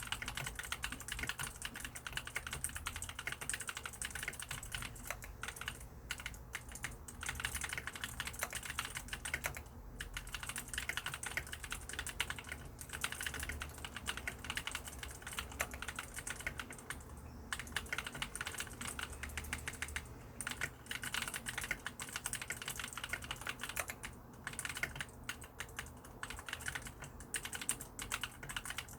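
Mechanical keyboard with lubricated clicky blue switches being typed on rapidly and continuously: a dense stream of sharp key clicks, with a few brief pauses.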